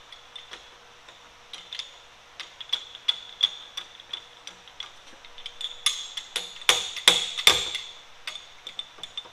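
Irregular metallic clicks and knocks with a ringing tone, growing denser and louder about six to seven and a half seconds in, from the spindle and drawbar of a vertical milling machine being worked loose by hand to take out the drill chuck.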